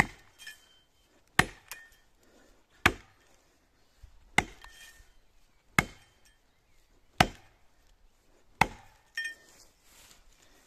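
An axe chopping into the trunk of a standing pine at its notch: seven sharp blows, one about every second and a half.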